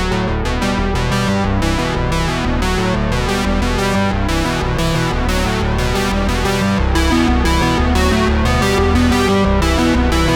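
Background music with synthesizer and keyboard, played with a steady beat; a heavier bass comes in about seven seconds in.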